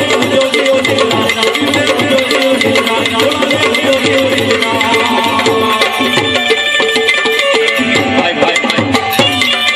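Live Gujarati bhajan music: tabla with harmonium and a man singing.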